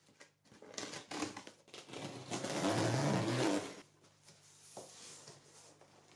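A taped cardboard box being opened by hand: rustling and scraping of the cardboard flaps, with a longer tearing rip of tape and cardboard about two and a half seconds in, the loudest part, followed by quieter handling of the flaps.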